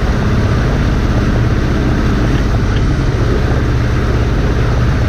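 Motorboat engine running steadily while the boat is under way: an even low drone with a constant rushing noise over it.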